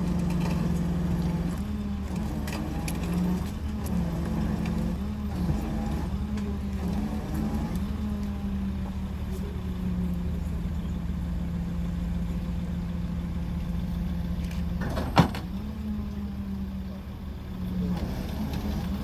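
Truck engine running steadily, its pitch stepping up and down every second or two, with a single sharp knock about fifteen seconds in.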